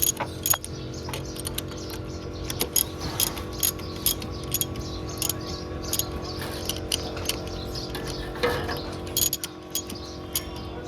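Motorcycle engine running steadily with irregular sharp ticking and clicking over it: the strange engine noise being shown.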